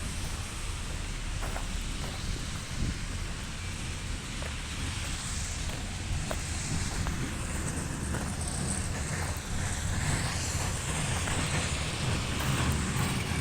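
A heavy engine running steadily, with a low rumble and wind noise on the microphone.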